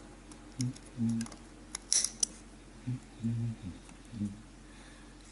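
Small spring-loaded thread snips clicking shut as they cut model-ship rigging thread, several sharp snips with the loudest about two seconds in, amid short low murmurs of a man's voice.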